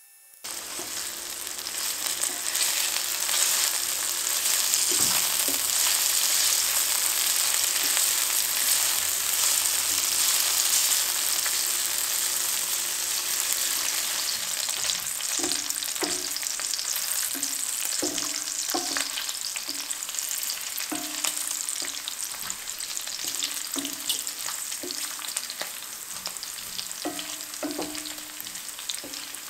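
Diced guanciale and pancetta sizzling steadily as the fat renders in an enamelled cast-iron pan. From about halfway, a wooden spatula stirs and scrapes against the pan in repeated strokes, roughly one a second.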